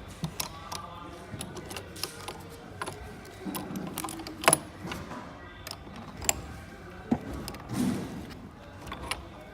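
Irregular metal clicks and knocks from the folding clamps of a moving-head stage light being handled and adjusted, with one sharper knock about halfway through.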